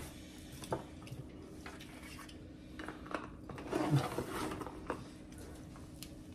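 Spoons and bowls clinking at a meal table: scattered light taps and clicks of cutlery against dishes, with a brief, louder clatter about four seconds in.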